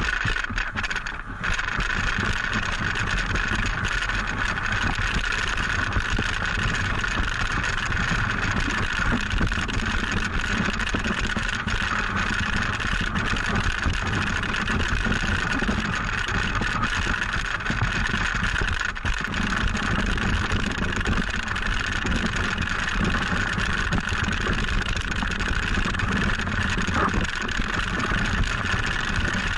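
Wooden toboggan sliding downhill over packed snow: a steady rumbling, scraping noise from the runners and the shaking frame, picked up by a camera mounted on the sled.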